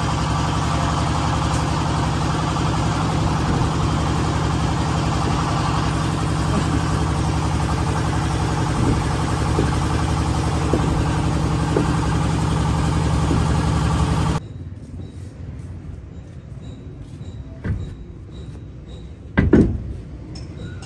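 An engine running steadily with a low hum, cutting off abruptly about two-thirds of the way through. After it comes quieter background with a few sharp knocks, the loudest shortly before the end.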